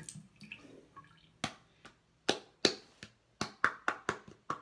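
A running tap shuts off, then a string of about ten sharp clicks and taps, irregularly spaced over the last three seconds, as a freshly wetted hairbrush is handled against a bathroom sink.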